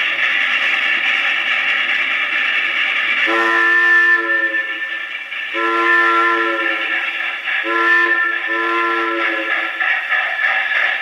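Recorded train sound effects played from an old 78 record through a wind-up acoustic phonograph, so the sound is thin and narrow-band. A steady train running noise carries on throughout. From about three seconds in, a chime train whistle blows four times: long, long, short, long, the pattern of a grade-crossing signal.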